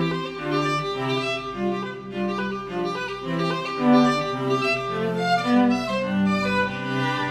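Background music of bowed strings, a violin melody over a cello, with notes changing a few times a second.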